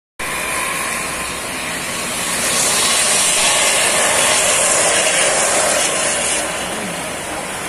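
Heavy tropical downpour falling steadily, mixed with traffic driving on the flooded road; the noise swells louder from about two and a half seconds in and eases again near the end.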